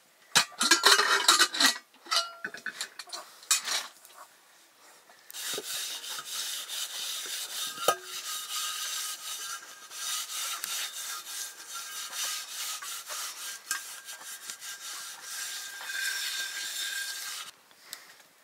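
Loud knocks and clatter in the first two seconds. After a short lull, quick, even scraping runs for about twelve seconds and stops suddenly.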